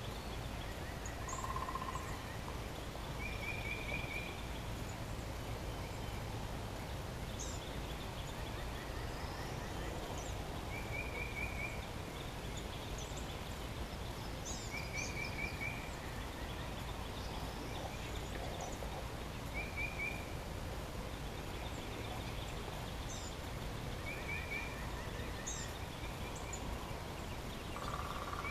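Quiet woodland with birds calling: a short fluttering trill repeats every three to five seconds, with scattered brief high chirps over a low steady background hiss.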